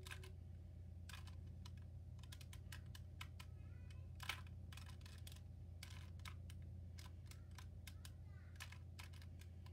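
Faint, irregular light clicks and taps of small plastic toy figures being handled, over a low steady hum.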